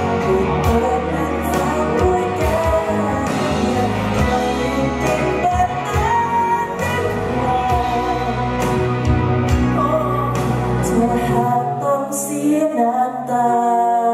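Live Thai pop band performance: a male singer sings over electric guitar, bass and a steady beat. About eleven seconds in, the bass and beat drop out, leaving the voice over lighter accompaniment.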